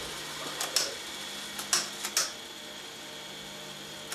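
Telex ACC-4000 cassette duplicator running with a steady whir and hum. A handful of sharp mechanical clicks comes from about half a second to two seconds in, after which the running is a little quieter.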